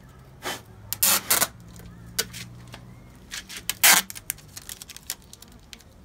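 Adhesive tape pulled off the roll in short, loud tearing pulls, the loudest about a second in and just before four seconds in, with small clicks between as it is pressed onto a wooden hive box. Under it, a steady low hum of stingless bees (Tetragonula hockingsi) flying around the opened hive.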